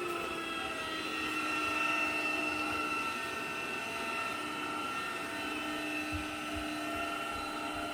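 Electrolux Ultimate Home 700 cordless stick vacuum running with a steady high motor whine, its pitch settling slightly lower right at the start. A few soft low knocks come in the second half.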